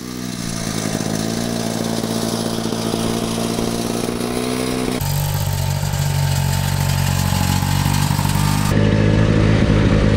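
A small engine running steadily, in three stretches joined by abrupt cuts about five seconds in and again near nine seconds, the engine tone shifting at each cut. In the last stretch it is an old Ski-Doo snowmobile's engine running.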